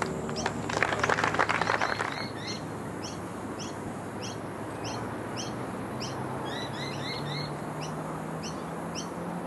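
A brief burst of spectator applause in the first two seconds, then a bird chirping in short repeated notes, roughly one every half second, over outdoor background noise.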